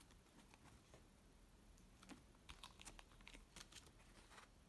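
Near silence, with faint scattered soft clicks and paper handling as a paperback manga volume is held, opened and its pages thumbed, most of them in the second half.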